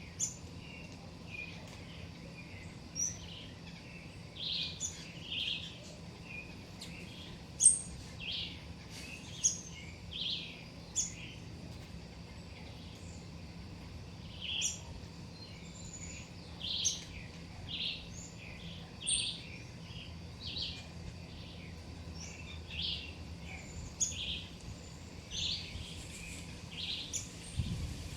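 Small songbirds calling with short, separate chirps at irregular intervals, over a steady low background hum.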